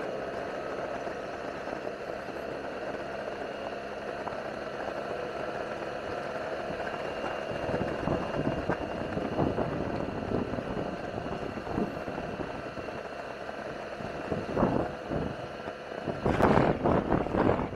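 Yamaha TMAX 560 scooter's parallel-twin engine running at a steady cruise, heard under wind rushing over the microphone. In the second half the wind grows gustier, with the loudest buffeting near the end.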